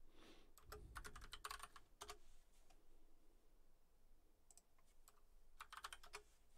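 Faint computer keyboard typing: a quick run of keystrokes in the first two seconds, then another short burst of key clicks near the end.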